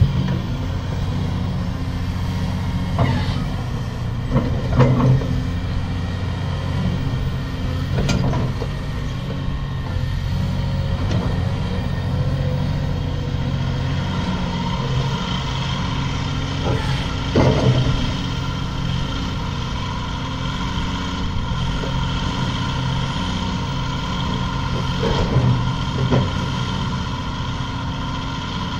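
2015 Cat 349EL hydraulic excavator's diesel engine running steadily under load, with a steady whine as the upper structure swings and the boom and bucket move. A few brief knocks come through at intervals.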